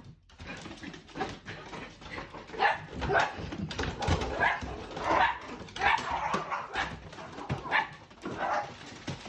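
A dog barking and yipping over and over in short, irregular calls.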